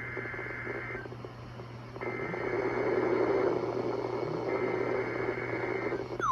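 NOAA Weather Radio SAME header data bursts: shrill two-tone digital data that marks the start of a Required Weekly Test. The end of one burst is heard, then two more, each about a second and a half long with about a second between them, over a steady low hum and hiss.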